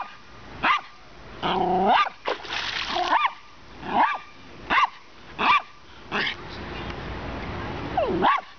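Lhasapoo (Lhasa apso–poodle cross) barking in short, high yips, about nine of them spread over several seconds, at the creek water it is trying to catch. Between the barks there is the splash and rush of shallow creek water.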